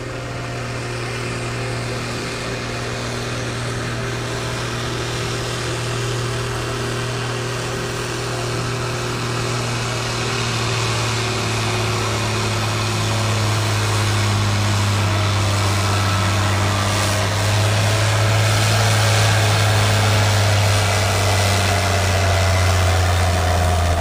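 Case IH 1455 XL tractor's diesel engine running steadily at the start of a tractor pull, a low even note that sinks slowly in pitch as it grows louder toward the end.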